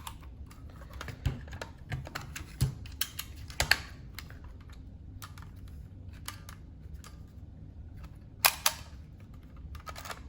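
Scattered plastic clicks of a Kodak Hawkeye R4 Instamatic's film-advance thumbwheel and shutter being worked, the loudest snaps about three and a half and eight and a half seconds in. The flashcube on top is not turning to the next bulb as the camera is wound.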